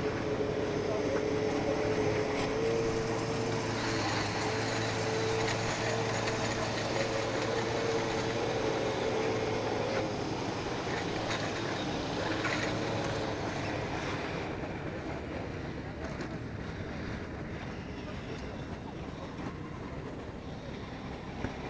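A nearby snowmobile engine runs with a steady drone, which fades out after about ten to fourteen seconds. Other engines and faint voices from a crowd of ice anglers sound in the background.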